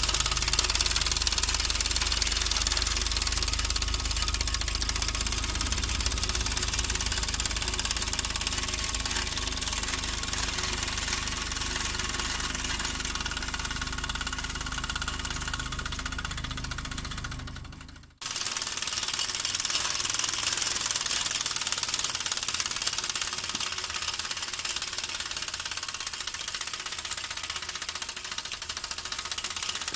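Mamod SW1 toy steam wagon with a 13 mm big-bore oscillating cylinder, running under steam: a rapid, steady chuffing clatter. It breaks off about 18 seconds in and resumes a little quieter.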